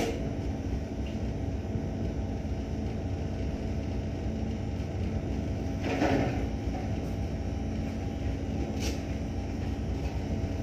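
Ship's engine machinery running with a steady low hum.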